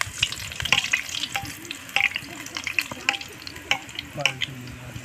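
A bhatura deep-frying in hot oil in an iron kadhai: a steady sizzle with frequent, irregular sharp crackles and pops, while a ladle spoons hot oil over the puffing dough.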